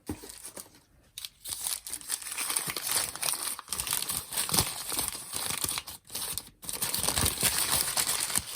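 Packaging crinkling and tearing as a wrapped item is unwrapped by hand: a near-continuous crackle with two brief pauses past the middle.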